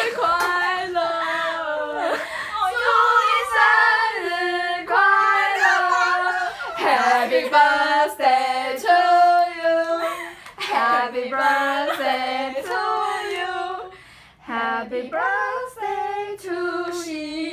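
A woman's high voice singing a melody in long held notes, some with vibrato.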